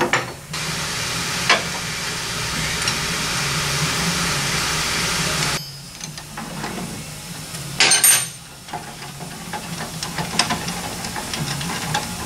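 A pneumatic shop tool hisses steadily for about five seconds, then cuts off sharply. A short, loud hiss follows about two seconds later, then light metal clicks and clinks of tools on the front suspension.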